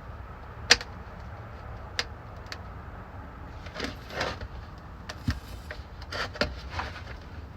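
Sharp plastic clicks and knocks with short creaks, the loudest a snap a little under a second in and a cluster of them in the second half, over a steady low rumble: a quart bottle of gear oil and its filler nozzle being handled and squeezed while the rear differential is refilled.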